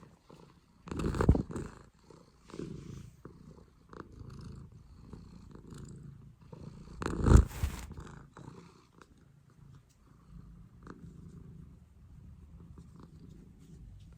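A cat purring, a low pulsing rumble, interrupted by two loud, sudden bursts of noise about a second in and about seven seconds in.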